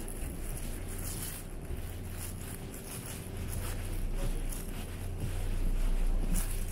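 Steady low rumble inside a Mugunghwa-ho passenger train carriage as the train runs along the track, with a few faint knocks.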